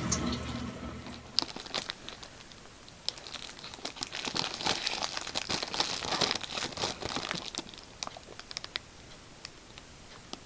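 Snack wrapper crinkling and tearing as a packet is handled and opened. The crackles start about a second and a half in, are densest in the middle, and thin to a few scattered crackles near the end.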